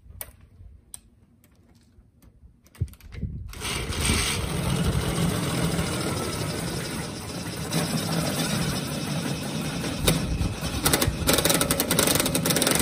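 Cordless drill driver spinning the fitting of a small hydraulic bottle jack, pumping it to force down on a mower tyre and break the bead off the rim. The drill starts about three and a half seconds in, after a quiet stretch with one click, and runs steadily, a little louder near the end.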